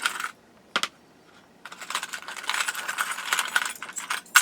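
Small metal scale wheel chocks clinking and rattling together as they are handled: a couple of sharp clicks, then a couple of seconds of continuous jingling clatter ending in a sharp click.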